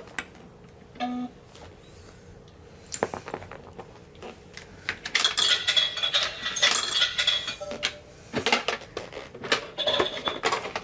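Vending machine selection and dispensing: a short beep about a second in, a click, then from about five seconds in a run of clinking and clattering of small hard items dropping.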